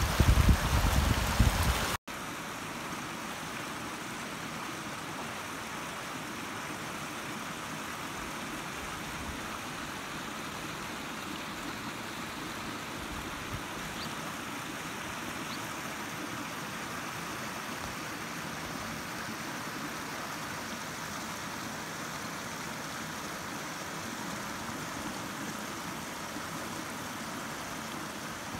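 Running water of a shallow stream: for about two seconds a loud rush with a heavy low rumble, then after a sudden cut a quieter, steady rush of flowing water.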